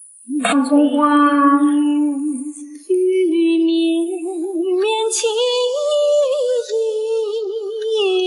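Background song: a woman singing a slow melody in long held notes with vibrato, a new phrase beginning about three seconds in and the line rising in pitch shortly after.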